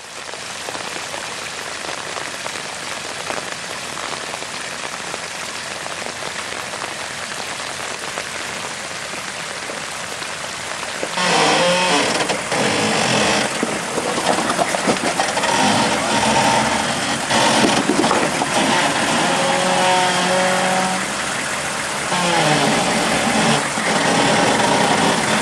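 A steady rushing hiss, then from about 11 seconds in the Hummer H1's engine can be heard working, its pitch rising and falling over the hiss.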